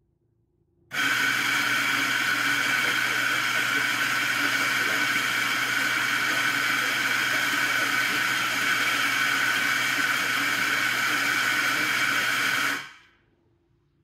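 Eureka Mignon Crono espresso grinder's motor grinding coffee beans. It starts about a second in, runs steadily for about twelve seconds, then winds down and stops as the dose reaches its set weight of 18 grams.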